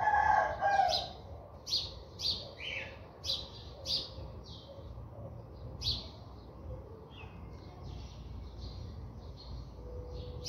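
Small birds chirping: short, high chirps repeating about once or twice a second, with a louder, lower call in the first second.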